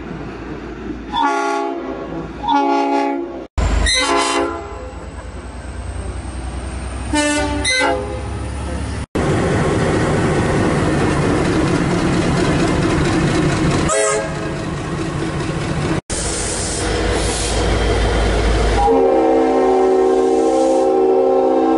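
Locomotive air horns across several cut-together clips. There are a few short horn blasts in the first eight seconds, then the rumble and wheel noise of a passing train. Near the end, a multi-chime horn holds a long chord.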